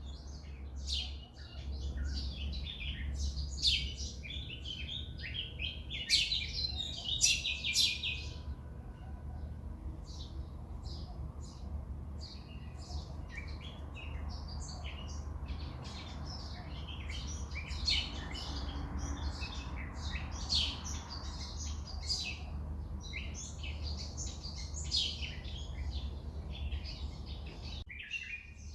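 Many wild birds chirping and calling over one another in quick, overlapping bursts, with a steady low rumble underneath.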